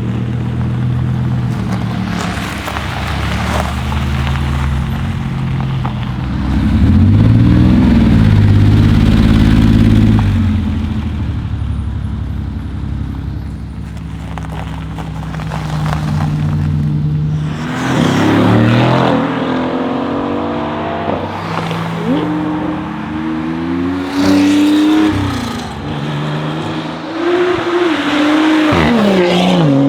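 Stage 2 tuned BMW M5 F90 Competition's twin-turbo V8 running, then revved several times, the pitch rising and falling. The longest and loudest rev comes about seven seconds in, with shorter revs later on.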